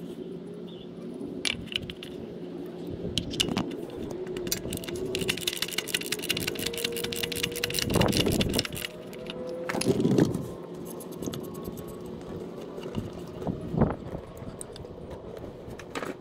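A 3/8-inch ratchet clicking on a cup-type oil filter wrench as the oil filter canister is worked loose, with dense ratchet clicks in the middle and a few louder metallic knocks from handling the tool and canister.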